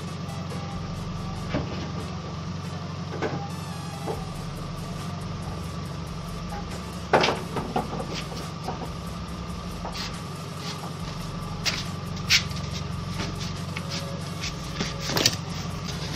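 Scattered metallic clicks and knocks of hand work on the underside of a car, the sharpest about seven seconds in, over a steady low mechanical hum.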